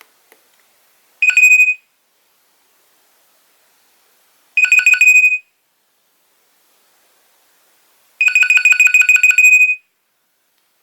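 Nokia 2300 mobile phone playing a ringtone: a single high beep trilling quickly, in three bursts that each last longer than the one before.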